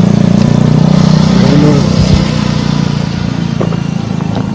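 A motorcycle engine running close by, loud for about two seconds and then fading.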